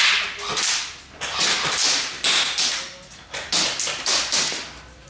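Repeated bursts of airsoft gunfire, about one burst a second, each a sharp hissing rattle that fades away in echo.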